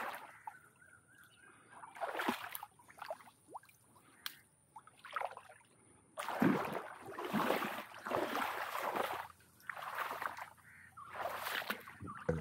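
Shallow stream water sloshing and splashing in irregular bursts, a few short ones and then a busier run through the second half, as the water is waded through and stirred up to drive out fish.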